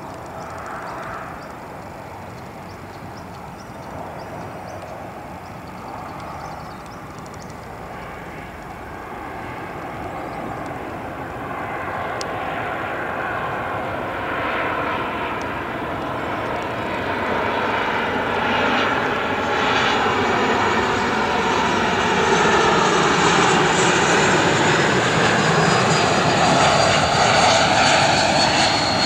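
Airbus A220-300's Pratt & Whitney PW1500G geared turbofan engines on final approach, growing steadily louder as the airliner comes closer. In the last ten seconds a high engine whine slowly falls in pitch as it draws near.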